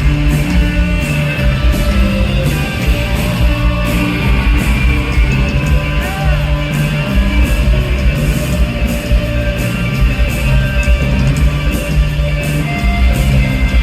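Live rock band playing a loud instrumental passage: electric guitars, bass and drums, with the cymbals keeping a steady beat.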